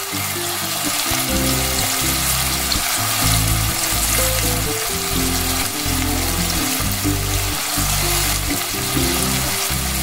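Chopped vegetables sizzling in olive oil in a pot, a steady hiss, under background music with a slow-moving bass line.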